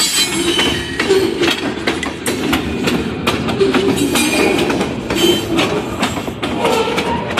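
Freight train covered hopper cars rolling past: steel wheels clatter over the rail in an uneven run of sharp clicks above a steady rolling roar, with short squealing tones from the wheels now and then.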